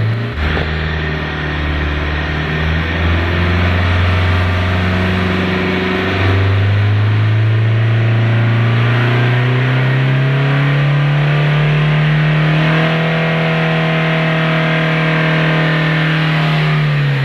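Mahindra Scorpio turbo-diesel engine revved in neutral and held at about 3,000 rpm. Its pitch climbs about six seconds in, holds steady, and drops back at the very end.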